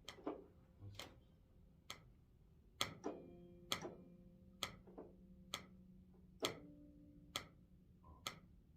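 Studio metronome click track ticking steadily, a sharp click a little under once a second. Faint held tones sound underneath from about three seconds in and change pitch about six and a half seconds in.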